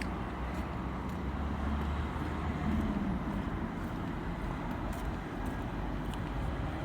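City street ambience: steady traffic noise with the low rumble of passing engines, which eases about halfway through.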